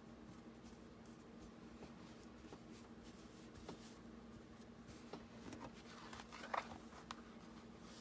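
Faint rustling and scraping of hands smoothing cotton fabric onto a glued cardboard cover and handling the cardboard, with small ticks, growing busier in the second half and loudest about six and a half seconds in, over a steady low hum.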